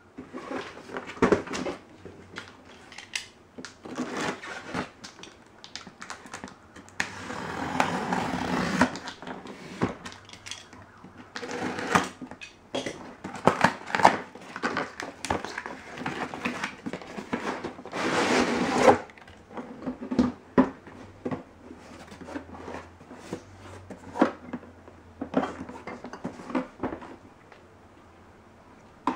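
A cardboard box being handled and opened by hand: scraping, rustling and knocks of cardboard, with a few longer scrapes about seven, twelve and eighteen seconds in. A hard black plastic carrying case is slid out and set down on a wooden floor, giving some hollow plastic knocks.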